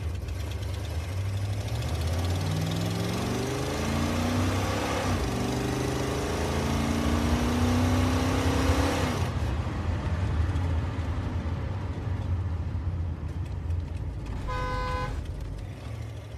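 Skoda Octavia Tour heater blower motor whistling, the whistle rising in pitch as the fan speeds up over a rushing of air, which cuts off suddenly about nine seconds in. A low steady hum runs underneath. The whistle is the sign of dry blower-motor bearings that need greasing. Near the end comes a short beep.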